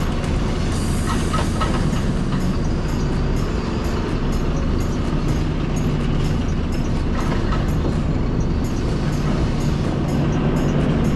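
Volvo FE 320 lorry's diesel engine running steadily, its note shifting slightly a few times.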